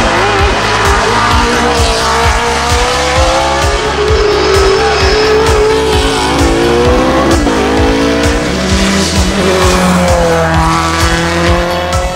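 Race car engines accelerating hard on a hillclimb course, engine pitch rising and dropping back at each gear change, over background music with a steady beat.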